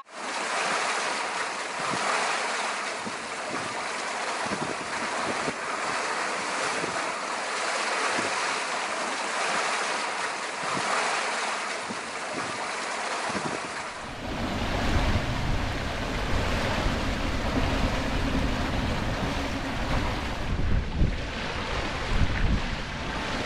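Water rushing and hissing past the hull of a sailboat moving fast under sail, its wake churning white. A little past halfway the sound changes to a deeper, buffeting rush, with wind blowing on the microphone over the splashing water.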